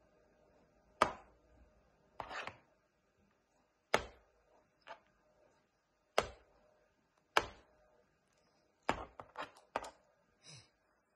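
Galah knocking on a plastic laptop lid: sharp single knocks every second or so, then a quick flurry of about five near the end, followed by one short, higher sound.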